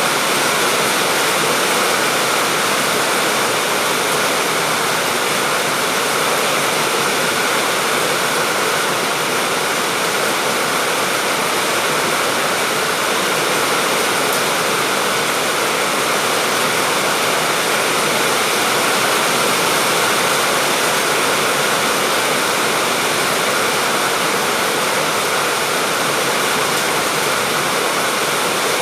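Steady, continuous heavy rainfall, an even hiss of rain with no distinct drops, thunder or changes.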